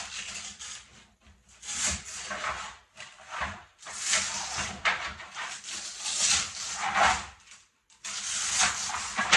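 Wooden bed-frame parts scraping and rubbing as they are handled, in a run of noisy bursts about a second long with short gaps between them.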